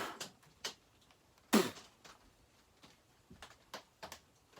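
Light clicks and taps of small metal chainsaw engine parts being handled during reassembly, with one louder clink about a second and a half in.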